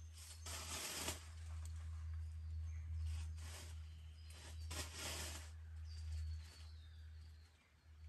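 Forest ambience: a steady low rumble with several short hissing, rustling bursts and a few faint, thin high bird calls, one falling in pitch about two-thirds of the way in.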